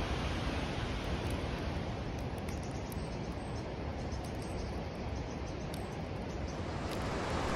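Steady rush of flowing water from the mountain stream in the gorge, with a few faint high chirps now and then.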